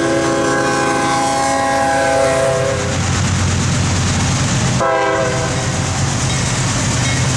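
CSX diesel freight locomotives passing with the horn blowing: a chord of several horn notes sounds for about three seconds, over the steady rumble of the engines and wheels. About five seconds in the sound cuts sharply and the horn sounds again briefly.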